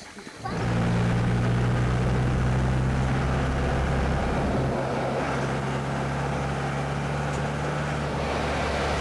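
A moving road vehicle's engine: a steady low drone with road noise, starting suddenly about half a second in, its pitch shifting slightly about halfway through.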